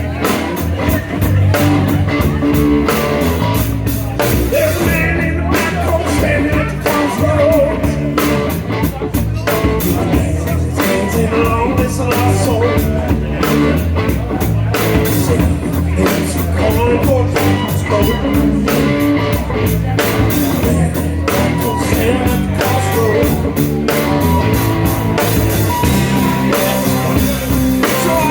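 A rock band playing live, with singing over electric guitar and a steady drum beat.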